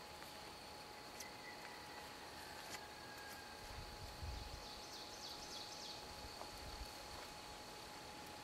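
Faint outdoor ambience dominated by a steady high insect drone, with a brief run of chirps about halfway through. Soft low thumps of footsteps or camera handling come in now and then.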